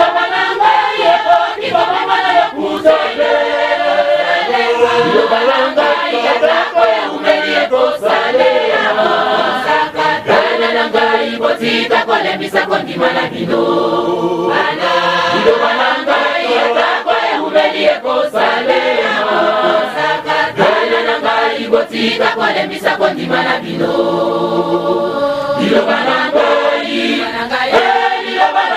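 Background music: a choir singing a Lingala gospel song in several voices over regular percussion hits.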